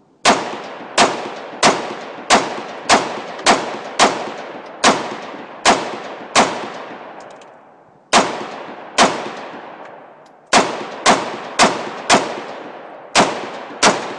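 Bushmaster AR-15 rifle fired semi-automatically in a quick string of about eighteen shots, mostly half a second to a second apart, with two longer pauses near the middle. Each sharp report is followed by a long fading echo.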